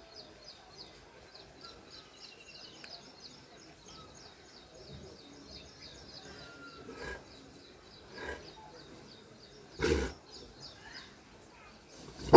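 A deep single bark from a French mastiff (Dogue de Bordeaux) about ten seconds in, the loudest sound here, with two fainter short sounds a few seconds before it. A bird twitters in quick repeated notes in the background for the first eight seconds or so.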